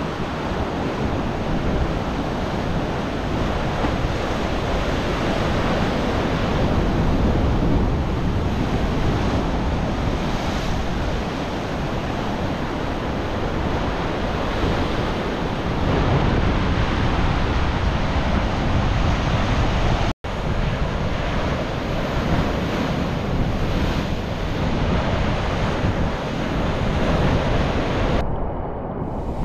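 Ocean surf washing ashore with wind, a steady rush that swells and eases every several seconds. It cuts out for an instant about two-thirds of the way through.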